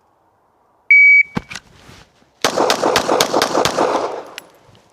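A shot timer's start beep, then a string of six rapid 9mm pistol shots about a quarter second apart, fired from a Glock 17 with a competition trigger.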